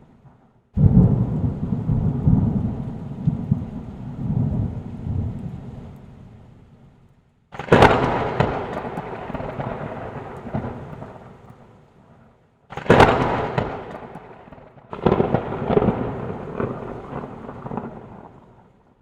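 Four thunder-like claps, each starting suddenly, sometimes with a sharp crack, and rumbling away over several seconds.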